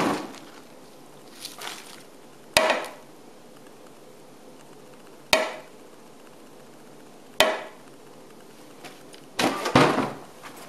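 A ceramic plate knocked against the rim of a plastic trash can to shake food scraps off: four sharp knocks a couple of seconds apart, each ringing briefly, then a rougher clatter of handling about nine and a half seconds in.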